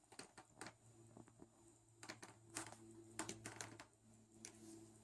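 Cat chewing fresh catnip leaves: a faint, irregular run of small crunchy clicks.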